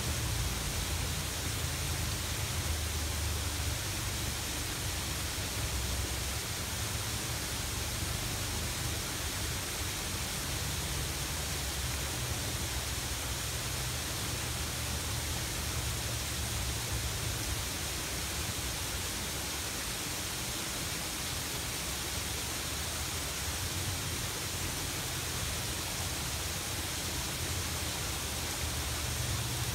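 Steady rushing of a garden waterfall falling into a pond, heard across the water, with an uneven low rumble of wind on the microphone.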